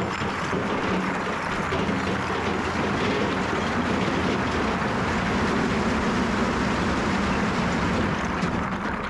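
Engine of a piece of earthmoving equipment running steadily with a low hum, easing off a little near the end.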